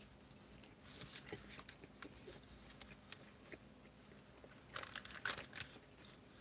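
Paper burger wrapper crinkling and rustling in short, faint bursts as fingers pick food out of it, with a louder flurry of crinkles a little under five seconds in.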